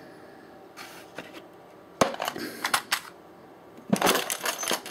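Toolbox being handled and opened: a sharp click about two seconds in, followed by rattling of the tools and parts inside. Near the end comes a louder clatter as the lid misbehaves.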